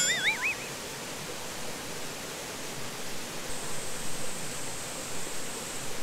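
Steady rush of a mountain valley stream. A short wavering whistle sounds at the very start, and a faint, high, steady whine joins from about halfway through.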